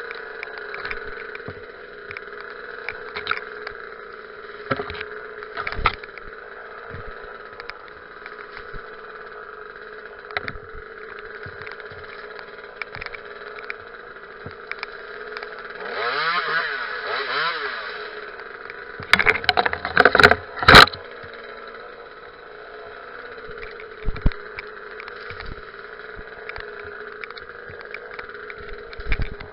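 Parker top-handle chainsaw's small two-stroke engine running at a steady idle, revved up and back down twice a little past the middle. Shortly after, a cluster of loud sharp knocks, the loudest sounds here.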